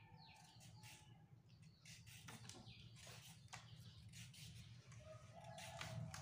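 Quiet, faint scraping strokes of a hand-held vegetable peeler on a carrot, spaced irregularly over a low steady hum, with faint bird chirps in the background.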